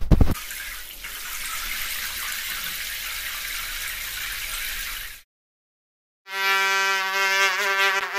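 Water-spray sound effect of a train wash: a steady high hiss for about five seconds, opened by a couple of heavy low thumps, that cuts off suddenly. After a pause a buzzing pitched tone starts and begins to waver near the end.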